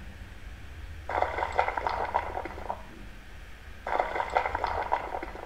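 Crackling, crumbling sound effect heard twice, each burst about a second and a half long, over a faint steady hum. It plays as the building collapses in a PowerPoint demolition animation.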